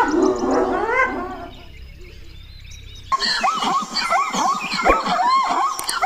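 A herd of zebras calling: a dense run of short, yelping, bark-like calls that starts abruptly about halfway through. Before it, a rising, warbling pitched sound fades out within the first second and a half, followed by a brief lull.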